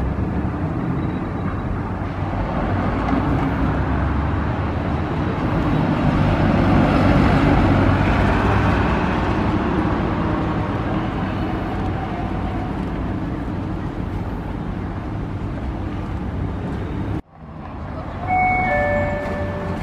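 Toei 7700-series streetcar running in on its track and drawing toward the stop, a steady motor and wheel-on-rail sound that grows louder toward the middle, then eases. Near the end the sound cuts out for a moment and a two-note falling chime sounds.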